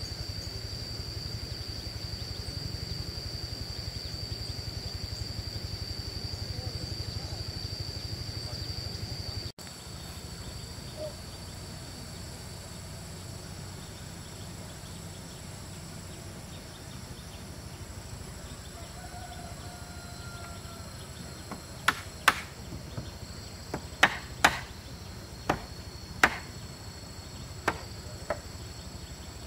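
Insects droning steadily at a high pitch, with an abrupt drop in level partway through. In the last third come about eight sharp, irregularly spaced tool strikes, typical of work on a wooden bridge.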